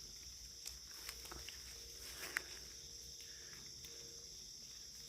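A steady, high insect chorus in the background, with a few faint clicks, the sharpest about two and a half seconds in.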